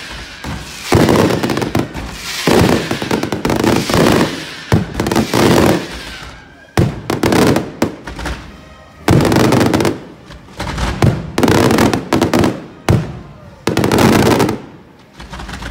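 Daytime firework shells and firecrackers bursting overhead: volleys of loud bangs and crackling, broken by a couple of short lulls.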